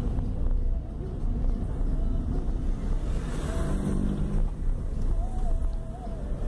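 Car driving through town, heard from inside the cabin: a steady rumble of engine and road noise.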